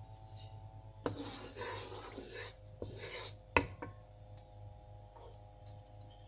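Wooden spoon scraping across the bottom of a nonstick pot through a thin layer of melted ghee, two rasping strokes, then a sharp knock of the spoon against the pot about three and a half seconds in.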